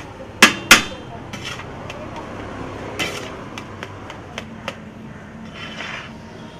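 Metal spatula clanking and scraping against a large flat griddle pan as a heap of noodles is tossed and chopped. Two loud clangs come about half a second in, followed by scattered lighter clicks.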